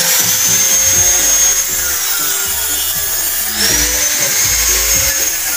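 Music playing over a power tool's high whine. The whine sinks away about two seconds in and rises again about three and a half seconds in, like a motor spinning down and back up.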